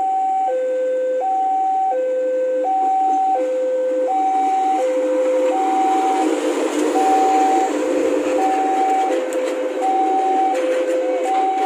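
Level-crossing warning alarm sounding a steady two-tone high-low signal, switching pitch about every 0.7 seconds. About five seconds in, the rumble and clatter of a diesel locomotive and its wagons rolling past on the rails swells beneath it.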